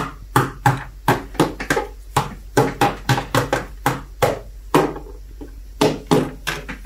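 A plastic toy horse tapped on a tabletop to make galloping hoofbeats: quick knocks, about three a second, with a short pause about five seconds in.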